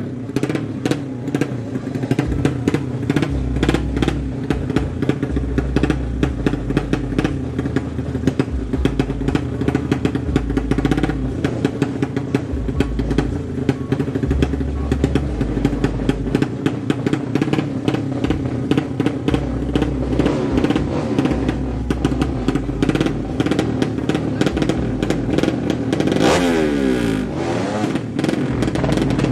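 200cc drag-bike engine idling loudly with a rapid, rough beat, blipped up and back down once near the end.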